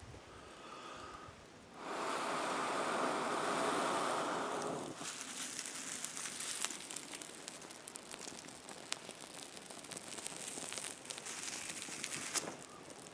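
A long breath blown steadily into a smouldering tinder bundle for about three seconds, then the bundle catching into flame and crackling, with scattered sharp pops.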